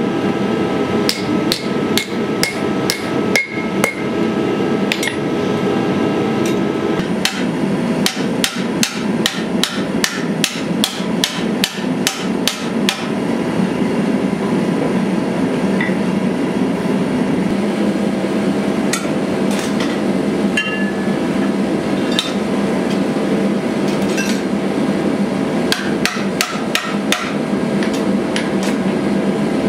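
Hand hammer striking hot pattern-welded steel on an anvil. The blows come in runs of about three or four a second, with ringing tones after some strikes, then as scattered lighter taps and a short burst near the end. Under them is a steady rush of noise from the gas forge.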